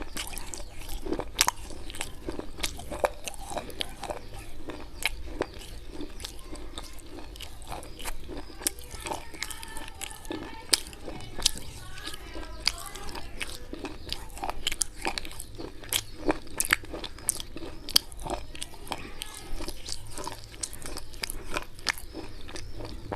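Slate pencils coated in white khadi chalk paste being bitten and chewed close to the microphone: a dense, irregular run of sharp crunches and crackles.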